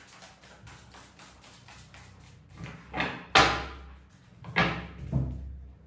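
A tarot deck being shuffled by hand: a run of quick, soft card flicks, then several louder rushing handling sounds that start suddenly and fade, about three seconds in and again near the end.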